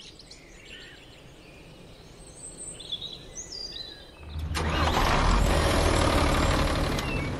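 Birds chirping faintly, then about four seconds in a loud truck engine sound starts up suddenly and runs steadily with a low hum as the tow truck pulls away.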